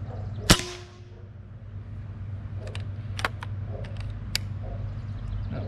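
A Benjamin Bulldog .357 PCP air rifle fires one sharp crack about half a second in, with a brief ringing tone after it. A few seconds later the rifle's action is worked for the next shot, making a quick series of small metallic clicks.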